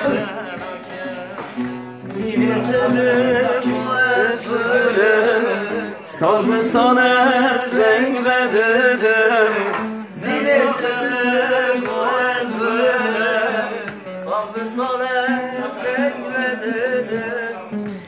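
Male voices singing a Middle Eastern folk song in long, ornamented phrases with short breaks between them, accompanied by a long-necked bağlama (saz) and a nylon-string guitar.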